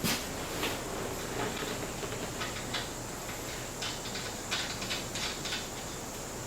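Faint, irregular light metal clicks and taps from a steel bumper brace bar being slid into place and fitted against its mounts, over a steady faint hiss.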